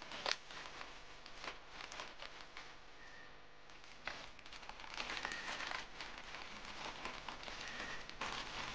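Plastic parcel wrapping crinkling and rustling as it is cut with scissors and pulled open by hand, with a quieter stretch in the middle and busier crinkling from about five seconds in.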